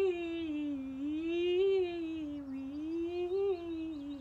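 A woman's singing voice holds one unbroken tone that slides smoothly up and down in three waves, then settles on a steady lower note near the end. It is a connected vocal warm-up glide, sung as a single line rather than as separate 'wi-wi-wi' notes.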